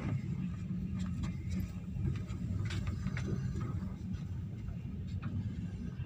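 Passenger train running at speed, heard inside the coach: a steady low rumble of wheels on rails, with occasional light knocks and clicks.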